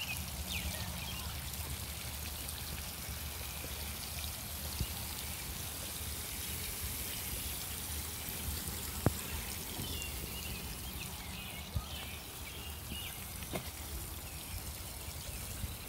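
Water spraying and trickling from small holes drilled in the end caps of a garden irrigation line, the system running below full pressure. Two sharp clicks partway through.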